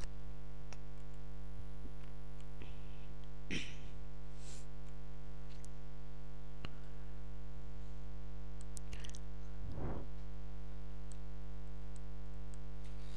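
Steady electrical mains hum and buzz on the recording, with a few faint clicks.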